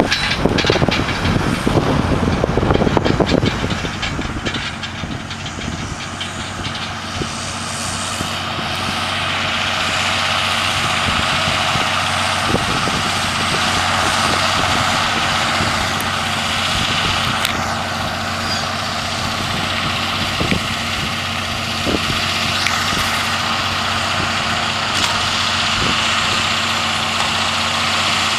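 John Deere 7530 tractor's six-cylinder diesel running steadily under load while driving a McHale Fusion round baler-wrapper through silage swaths, getting louder from about eight seconds in. A heavy rumble fills the first few seconds, and a few sharp knocks from the machinery come later.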